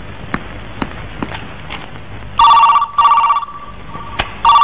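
Desk telephone ringing in a double-ring pattern: two short rings in quick succession about two and a half seconds in, then the next ring starting near the end. This is an incoming call.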